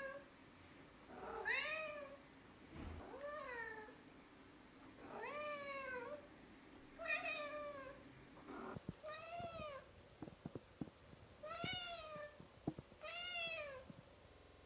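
A domestic cat meowing repeatedly, about eight drawn-out meows that each rise and fall in pitch, one every second and a half or two. There are a few short clicks between the later meows.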